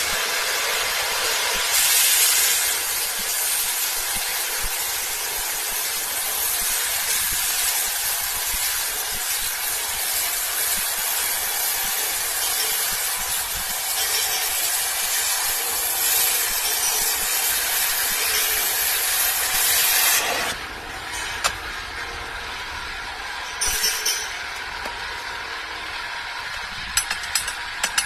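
A metal-cutting tool running with a steady, loud hiss, which cuts off about twenty seconds in, leaving quieter background noise with a few sharp clicks near the end.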